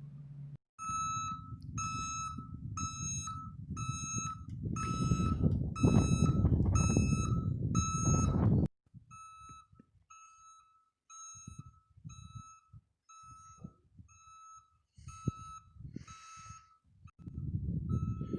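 Vehicle backup alarm on a John Deere Gator 835M utility vehicle, beeping about once a second while the vehicle reverses. For the first half a loud low rumble runs under the beeps and then cuts off suddenly, leaving the beeping fainter.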